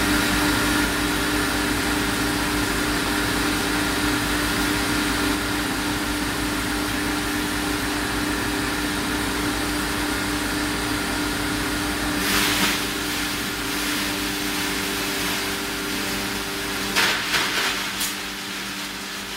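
Electric-motor-driven sawdust wood crusher running steadily with its blower, a constant hum with several steady tones. Short louder bursts about twelve seconds in and again near the end as pieces of wood are thrown in and shredded.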